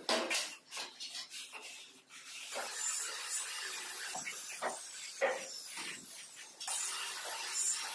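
Hand tools scraping and rubbing across a damp sand-cement mortar bed being levelled for floor tiles, with a few short taps in the first two seconds and a steadier hissing scrape from about halfway on.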